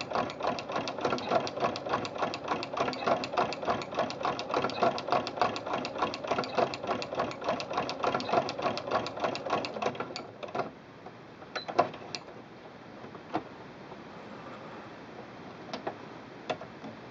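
Singer Quantum Stylist 9960 sewing machine stitching at a steady rhythm of several stitches a second, driving a Singer ruffler attachment set to pleat every sixth stitch. The machine stops about ten seconds in, and a few light clicks follow.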